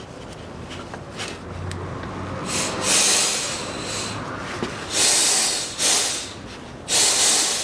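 Compressed-air blow gun hissing in four short blasts into the breather fitting of a Land Rover Discovery 3 front differential, blowing the fitting through to check it is clear; the fitting passes air freely.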